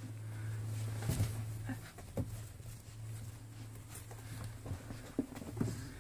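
Puppies scuffling and playing on a mat: a faint patter of paws and a few soft knocks, over a steady low hum.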